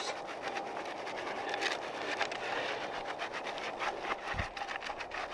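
Wood-framed wire-mesh soil sifter shaken by hand, dirt rattling and scraping through the screen in a quick, uneven patter of small ticks as it sprinkles a light covering of soil over a bedded trap. A soft low thump about four seconds in.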